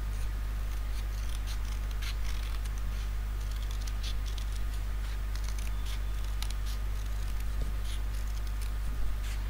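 Scissors snipping through a sheet of paper while cutting out a heart shape: a string of short, irregular snips, over a steady low hum.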